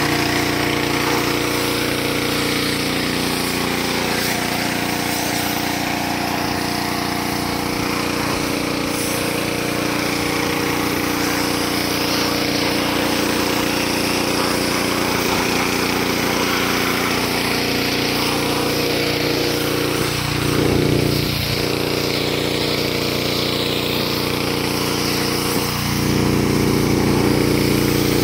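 Pressure washer running steadily: a motor-driven pump hum under the hiss of the water jet spraying the car and the concrete. The hum dips in pitch a few times in the second half and gets louder near the end.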